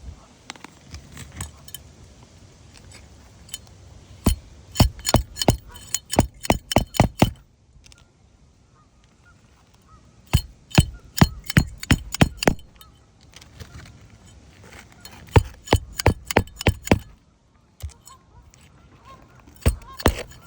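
Hammer blows on a shingle roof, in bursts of several quick strikes with pauses between, as shingles are worked loose during a repair.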